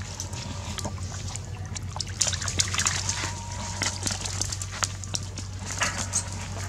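Monkeys splashing and scampering through a shallow muddy puddle: short, irregular splashes and patters, thickest in the middle, over a steady low hum.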